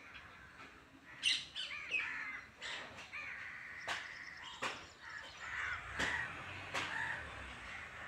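Green parakeet calling: a string of harsh, screeching calls, starting about a second in and repeating irregularly, some of them short and sharp.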